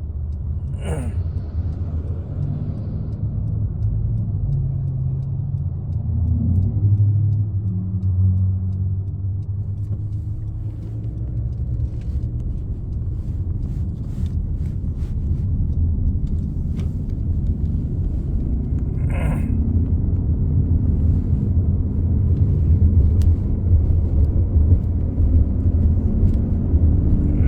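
Loud, low humming drone from the rear of a 2015 Honda CR-V Touring, steady and growing louder toward the end.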